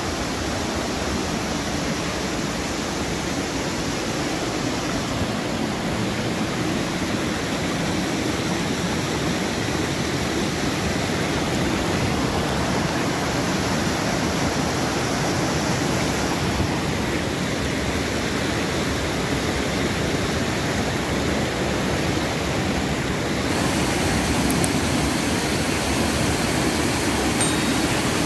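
Steady rush of water from a waterfall and a stream tumbling over rocks. About three-quarters of the way through the sound shifts a little and gets slightly louder.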